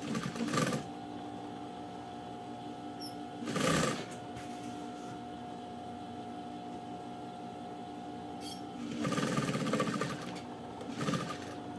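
Sewing machine stitching knit-fabric strips onto a rug in a few short runs of rapid needle strokes, with pauses between.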